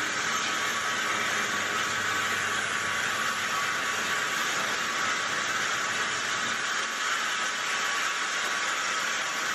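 Traub automatic lathe running: a steady, even hiss of machining noise with no separate knocks.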